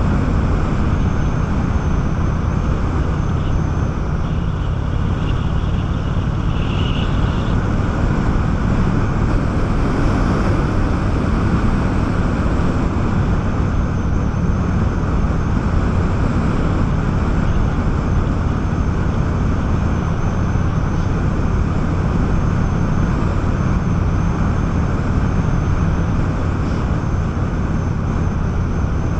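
Honda 650 motorcycle engine running steadily at cruising speed, heard from the rider's seat, with wind noise rushing over the microphone.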